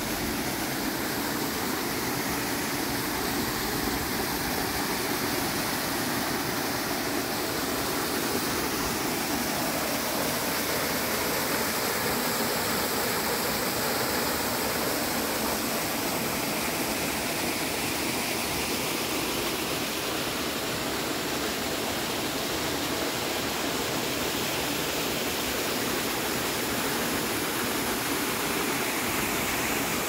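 Small waterfall falling into a rock pool: a steady, unbroken rush of water.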